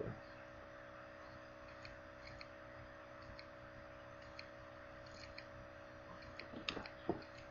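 Quiet room tone: a faint steady hum with hiss and a few soft scattered ticks, and a couple of light clicks near the end.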